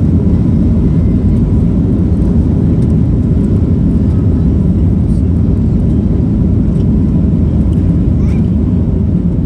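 Steady, loud cabin noise inside a Boeing 737-8-200 MAX during its landing: its CFM LEAP-1B engines and the airflow, heard from a window seat behind the wing.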